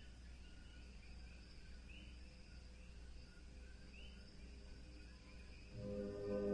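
Faint background hum with short, high rising chirps about every two seconds, like insects or a bird. Near the end, soft ambient music fades in.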